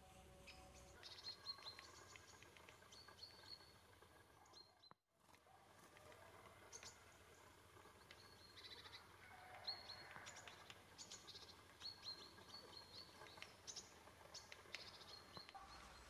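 Small birds chirping faintly in the background, with many short high chirps repeated throughout. The sound drops out briefly about five seconds in.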